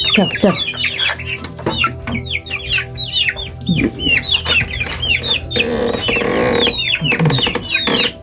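Young chickens peeping rapidly: many short, high, falling chirps, with a few lower clucks mixed in. A rustling noise lasts about a second, around six seconds in.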